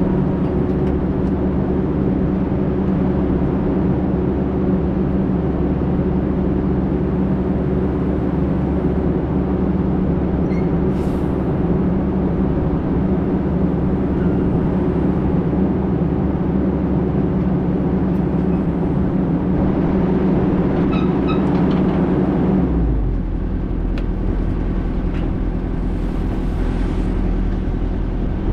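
Heavy diesel engine running steadily at one pitch, then dropping to a lower, quieter pitch about 23 seconds in.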